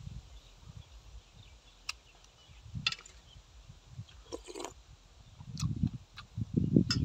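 A person eating soup: a few short wet slurps and lip smacks from a spoon, with chewing. Low rumbling bursts grow louder near the end.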